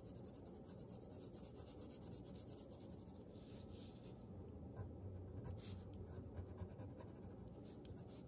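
Faint scratching of a graphite pencil shading on paper in quick, close strokes, a little louder for a few seconds past the middle.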